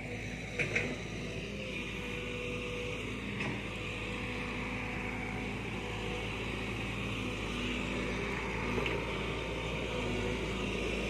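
A heavy vehicle's engine running steadily and growing slightly louder, with a couple of short clicks about a second in.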